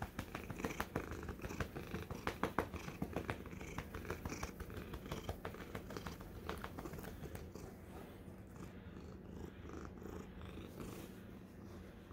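Domestic cat purring steadily while being stroked and scratched. Close rubbing and short irregular clicks from hand and fur against the microphone run through the first half and then thin out.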